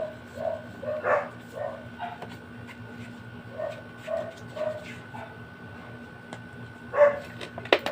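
A dog barking repeatedly, about two short barks a second, stopping about five seconds in, over a steady hum. Near the end there is one louder sound and a sharp click.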